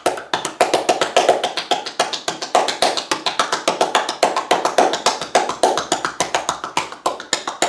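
Rapid massage percussion (tapotement): the masseuse's hands strike a bare back in a quick, even train of slaps, about ten a second.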